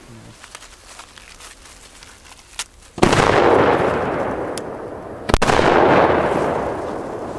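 Two loud firecracker bangs about two and a half seconds apart, each followed by a long rolling echo that slowly fades.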